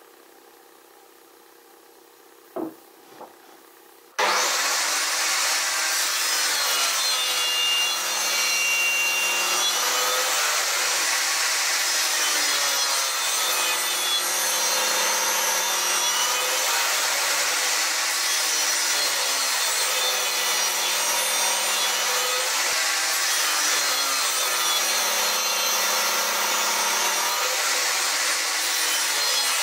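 Two light knocks, then about four seconds in a table saw running and cutting through a pine block held upright in a tenoning jig. The pitch dips and recovers slowly as the blade works through the wood.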